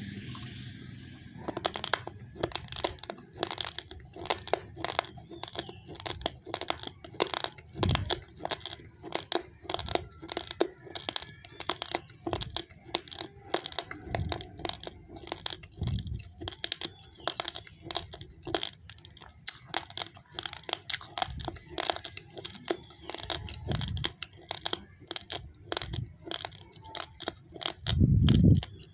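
Raw, uncooked rice grains being crunched and chewed close to the microphone: a rapid run of sharp cracks, several a second, beginning about a second and a half in. A few dull low thumps break in, the loudest near the end.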